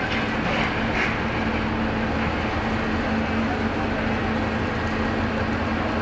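Steady drone of heavy machinery with a constant low hum, holding an even level throughout.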